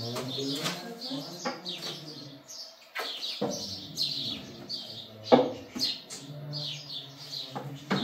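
Small birds chirping over and over in quick short notes, above a low steady hum. A single sharp, louder sound comes about five seconds in.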